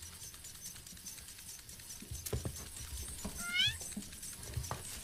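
A kitten gives one short, high mew about three and a half seconds in, with a few faint light taps around it.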